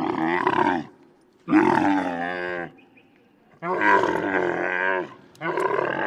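Camel grunting: four drawn-out calls of about a second each, with short pauses between them.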